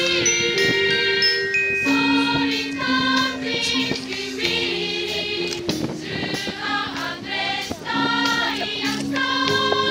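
High school wind band playing held chords on brass and saxophones, the harmony moving every second or so.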